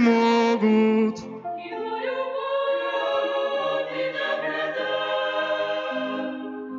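Choir singing a Christian hymn in several parts with long held chords. A loud held note at the start breaks off about a second in, and softer sustained harmony follows.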